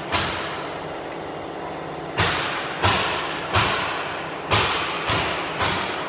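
A series of sharp knocks at uneven intervals, about seven, each dying away quickly, with a gap of nearly two seconds after the first. A faint steady hum lies underneath.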